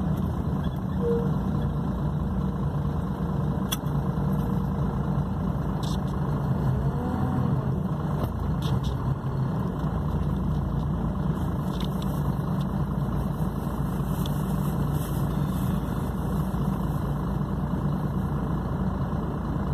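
Intercity coach's diesel engine idling, a steady low drone.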